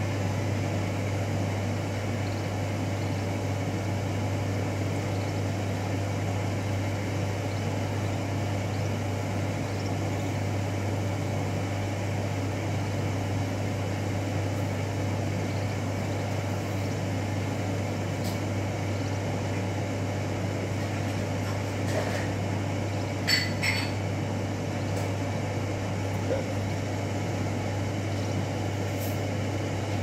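A steady low mechanical hum with constant noise under it, with a few short, sharp high-pitched sounds about three-quarters of the way through.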